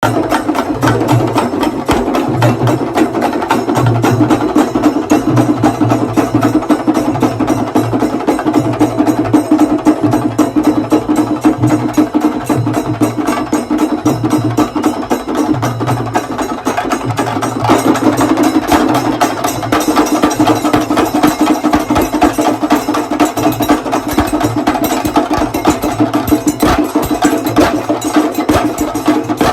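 Chenda drums beaten with sticks in a fast, dense stream of strokes, over a deeper beat that pulses about once a second.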